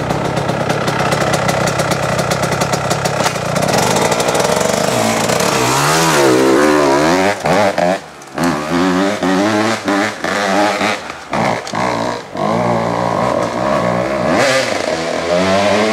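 Kawasaki 125 enduro dirt bike engine running hard, then revved up and down again and again as the throttle is opened and shut. Several brief dips come where the throttle closes, under load on a steep climb.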